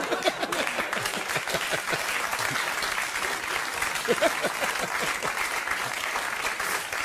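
Studio audience applauding steadily, with laughter and scattered voices mixed in.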